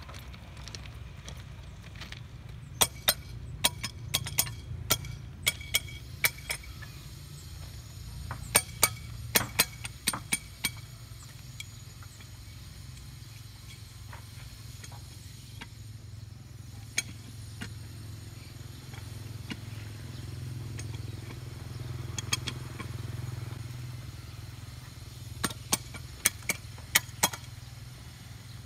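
Sharp metallic taps in quick runs of several strikes: a track inspector's hammer knocking on the steel rail and its fastenings to check them. A low steady rumble runs underneath.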